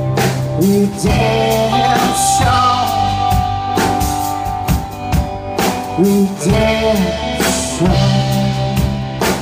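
Live band playing an instrumental passage between vocal lines: drum kit with regular beats and cymbals, electric bass, electric guitar and strummed acoustic guitar.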